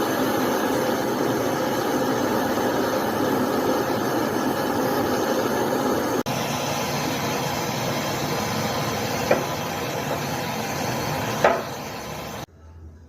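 Samsung washing machine running with a loud, steady noise, the noise problem it is to be repaired for, with two sharp knocks in the second half. The noise stops abruptly near the end.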